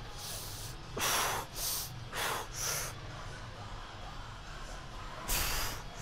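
A man's sharp, forceful breaths in and out, the breathing of a lifter straining through reps on a Smith machine. There are five quick breaths in the first three seconds and a louder one about five seconds in, over a steady low hum.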